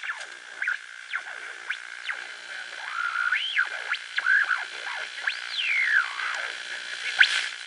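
Electronic synthesizer music: sliding, swooping tones rising and falling over a steady high drone.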